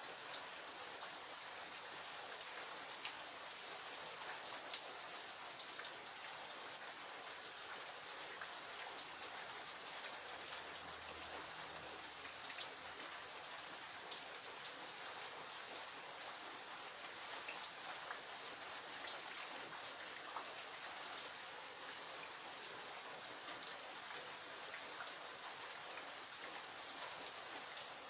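Steady rain falling, with many individual drops ticking and pattering on surfaces.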